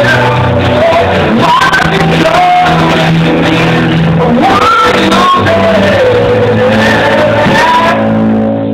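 A rock band playing live in a large room: a man's sung, shouted vocal over electric guitar, bass guitar and drums. Near the end it gets a little quieter and thinner.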